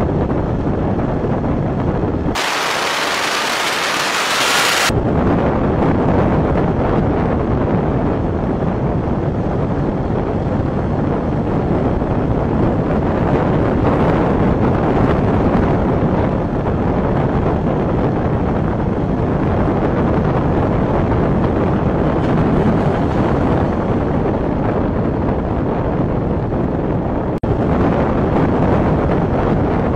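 Wind buffeting and road rumble on the microphone of a camera riding on a moving vehicle, loud and steady throughout. For a couple of seconds, about two seconds in, it gives way to an even, higher hiss.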